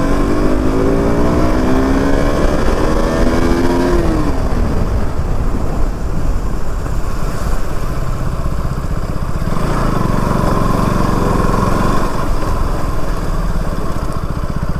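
KTM RC 200's single-cylinder engine accelerating, its pitch rising for about four seconds and then dropping away, followed by a steady rushing noise of the ride.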